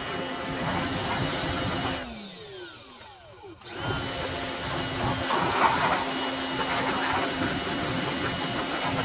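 Pressure washer running with its spray hissing against the mower; about two seconds in the machine winds down with a falling pitch, then starts up again abruptly about a second and a half later and runs steadily on.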